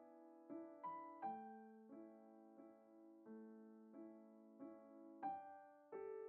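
Quiet background music: a slow, gentle piano melody with a new note or chord struck about every two-thirds of a second, each one fading away.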